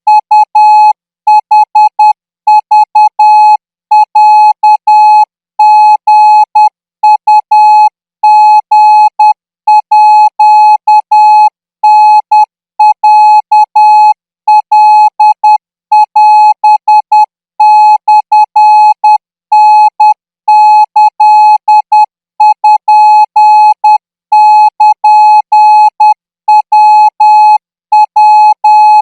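Morse code practice tone at about 14 words per minute, sending Thai Morse code. A single steady beep is keyed on and off in short dots and longer dashes, grouped into characters with short gaps between them.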